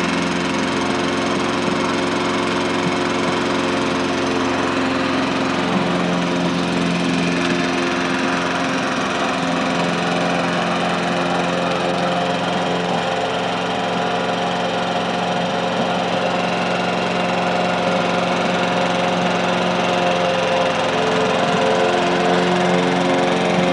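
Gasoline walk-behind rotary lawn mower engine running steadily as the mower is pushed across the grass.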